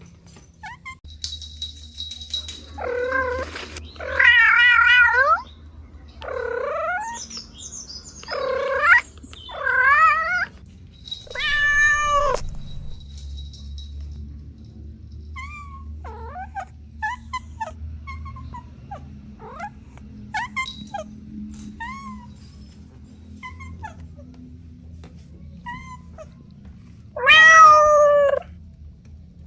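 Cats meowing: a run of long, loud meows, some wavering in pitch, then fainter short chirping mews, and one more loud meow near the end.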